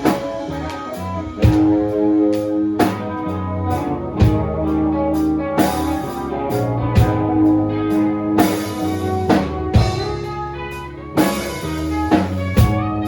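A band playing a slow blues-rock song: guitar over a drum kit, with a heavy drum hit about every one and a half seconds.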